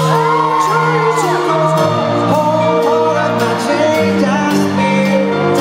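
Live pop band playing, with a male lead vocal sung over long held chords.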